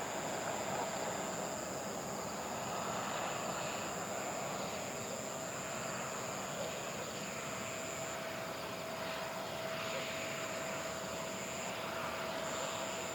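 Boeing 777 jet engines running steadily at a distance, a low continuous rumble and hiss with a steady whine coming in about halfway through. Insects keep up a high, steady chirring over it that breaks off briefly twice.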